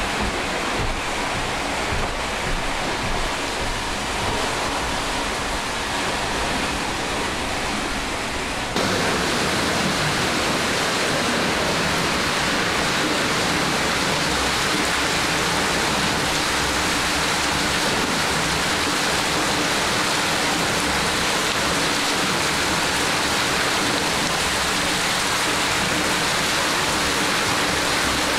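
Water rushing and churning in a wooden fulling trough, tumbling a wool lizhnyk blanket to felt it. The water runs steadily and grows louder about nine seconds in.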